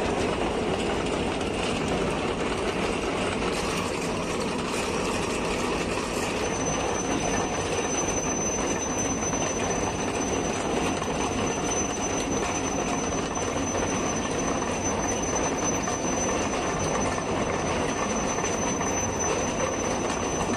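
Rail wagons loaded with long rail panels rolling along the track with a steady rumble; a thin, steady high-pitched whine comes in about six seconds in and holds.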